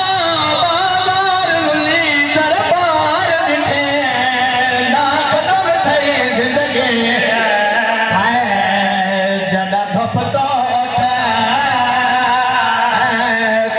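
A zakir's sung recitation: a man's voice chanting in long, wavering melodic phrases, the sung style of a majlis marsiya or noha.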